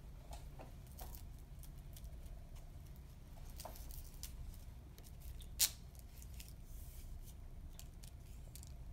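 Small handling sounds of a straw and plastic spoon being worked at a plastic meal tray with cup and bowl: light scattered clicks and rustles, with one sharp click about five and a half seconds in, over a steady low room hum.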